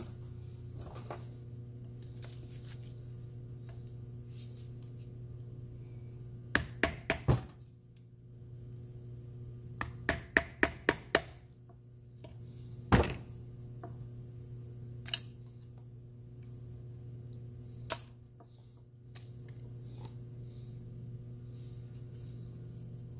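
Snap ring pliers working at a stubborn snap ring on a ZF S5D 320Z gearbox's detent cap, the ring sunk into the cap and held tight by the spring behind it. Sharp metal clicks come in a quick run of about four, then a run of about six, then single clicks a few seconds apart, over a steady low hum.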